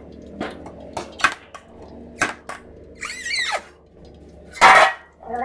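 Metal utensils clinking and scraping against a cooking pot of dum biryani as it is opened and checked: several sharp clicks, a wavering squeal-like scrape about three seconds in, and a short loud rushing noise near the end, over a steady low hum.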